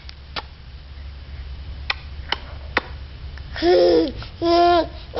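A baby smacking his lips to make kissy sounds: several sharp, separate smacks over the first three seconds. Then come two short voiced baby sounds near the end, the loudest part.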